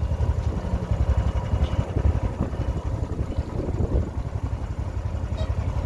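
Boat engine running at low speed: a steady low rumble of fast, even pulses.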